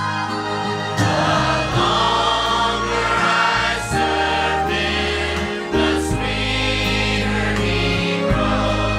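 Mixed church choir singing a gospel song in parts, the full choir coming in louder about a second in and holding sustained chords.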